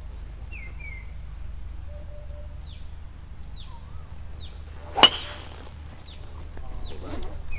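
A driver strikes a teed golf ball about five seconds in: one sharp crack at impact. Birds chirp throughout in short, repeated, falling calls, and voices start near the end.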